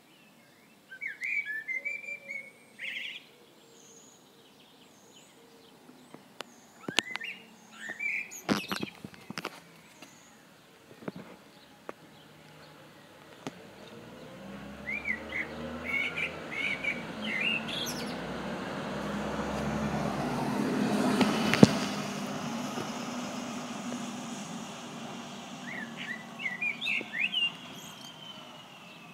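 Small birds chirping in short bursts several times. A vehicle passes on the wet road, swelling to a peak about two-thirds of the way through and fading away, its pitch falling as it goes by.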